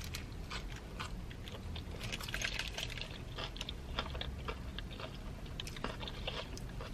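A person biting into a burrito at the start and then chewing it with the mouth close to the microphone: many small wet clicks and crackles, over a low steady hum.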